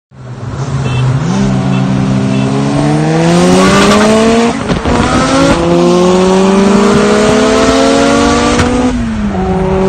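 Turbocharged Mazda Miata engine accelerating hard: it pulls up in pitch, drops sharply on a gear change about four and a half seconds in, and climbs again through the next gear before dropping near the end as the driver shifts or lifts off.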